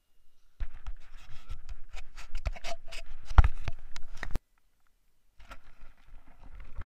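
Water splashing over a kayak-mounted camera, with close knocks and scrapes against its housing, in two stretches that each cut off suddenly.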